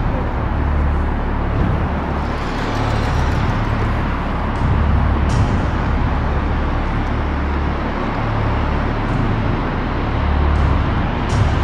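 A car being driven: a steady low rumble with road and tyre noise that swells and eases a little.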